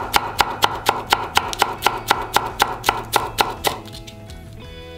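Kitchen knife finely shredding cabbage on a wooden cutting board: quick, even chops about four a second, stopping about a second before the end. Soft background music plays throughout.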